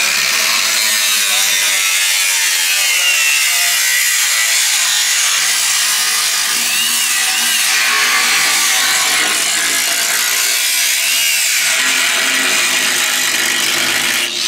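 Angle grinder with a cut-off wheel cutting into a pickup truck bed's wheel well, running continuously, its pitch wavering as the disc bites into the material.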